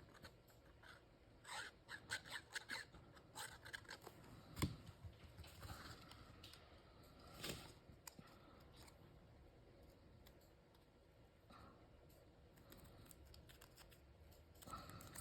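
Faint handling of paper craft pieces on a tabletop: a quick run of small snips and clicks in the first few seconds, a single light knock about four and a half seconds in, then near silence.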